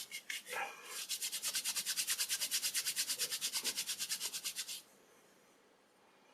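Palms rubbing quickly back and forth, rolling a small rubber tube between the hands to warm it and make it pliable. The rubbing goes at about ten strokes a second for about four seconds and stops near the five-second mark.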